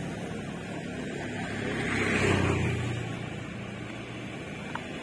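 A passing motor vehicle: engine noise that swells to a peak about two seconds in and fades away again.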